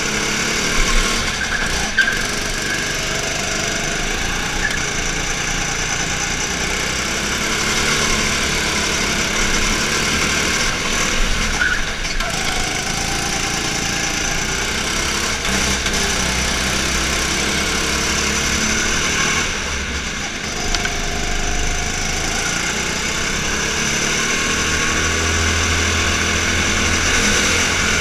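Go-kart petrol engine running under throttle, its pitch rising and falling as the kart speeds up out of corners and slows into them, with a few short knocks.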